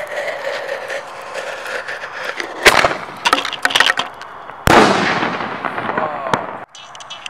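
Consumer aerial fireworks going off. A sharp bang comes about two and a half seconds in, with a scatter of cracks after it. A louder bang follows near five seconds and fades in a long crackling hiss before cutting off suddenly.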